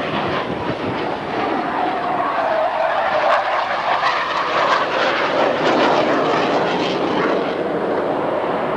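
Jet engine noise from Blue Angels F/A-18 Hornets flying past, swelling to its loudest mid-way, with a tone in it that slides down and then back up in pitch.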